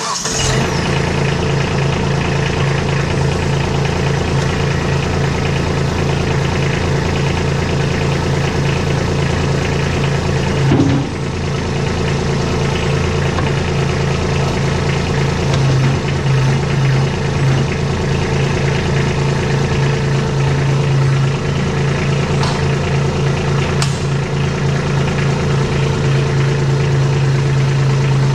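Kubota compact tractor's diesel engine running steadily, with a brief dip in level a little under halfway through.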